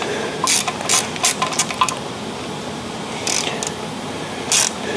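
Metal tool-and-hardware clicks and short scrapes of a bolt and wrench being handled against a cast-iron Model T engine block while the camshaft bearing bolts go in: a quick run of clicks in the first two seconds, then a few more further on.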